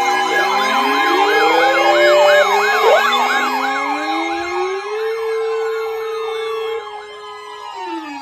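Several sirens sounding at once, wailing over each other, one with a fast rise and fall about three times a second. Near the end they wind down in falling pitch and the sound drops off.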